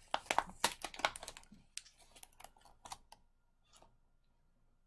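Clear plastic clamshell container clicking and crackling as its snap lid is pried open: a quick run of sharp clicks that thins out after about two seconds.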